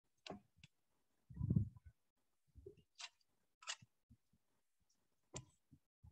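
Faint, choppy clicks and short broken-up noise fragments separated by dead silence, with a louder muffled low thump about one and a half seconds in: a remote student's microphone dropping in and out over a poor internet connection.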